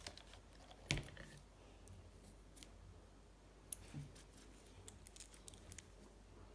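Faint, scattered small clicks and taps from handling small metal parts and tools, with a louder tap about a second in and another about four seconds in.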